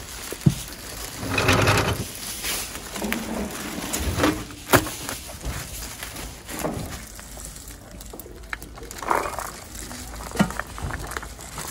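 Food-packing handling noise: plastic gloves, cling film and styrofoam trays rustling and crinkling in irregular bursts, with scattered clicks and knocks, the sharpest click near the middle.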